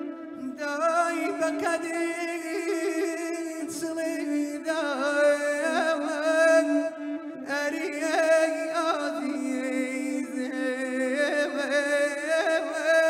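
A man singing a slow, ornamented Kurdish song into a microphone. His voice wavers and bends through long phrases, with short breaths between them, over a steady low drone held underneath.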